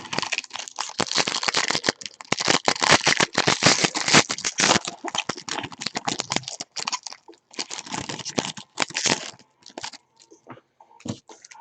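Trading card pack wrappers being torn open and crumpled: a dense, crackling run of tearing and crinkling that thins to a few scattered clicks about nine seconds in.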